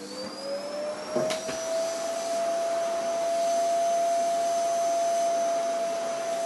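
An electric motor-driven appliance running: a whine that rises as it spins up over the first second or so, then holds steady over a loud rushing noise, with a few clicks.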